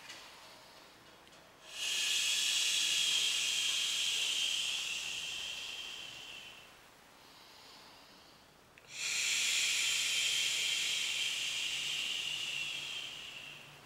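Two long hissing exhalations from a person. Each lasts about five seconds, starts abruptly and fades out, with a short pause between them.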